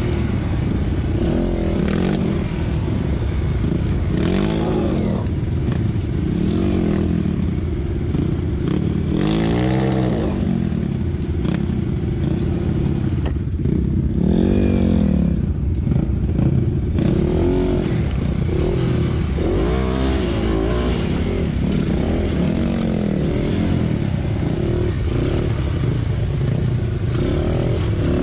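Dirt bike engine revving up and down again and again, its pitch rising and falling every few seconds, with the hardest revs about ten and fifteen seconds in.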